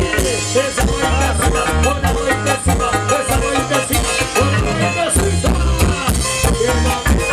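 Peruvian folk band playing live through a stage PA, with a steady pulsing bass beat, percussion and an instrumental melody.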